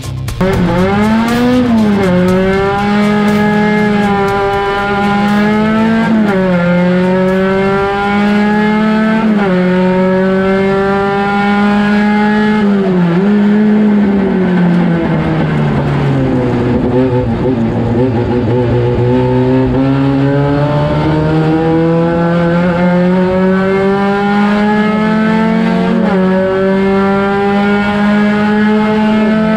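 Volkswagen Gol race car engine at full throttle on track, revving up through the gears with a sharp upshift every few seconds. The revs fall away about halfway through as it slows, then it accelerates hard again, with one more upshift near the end.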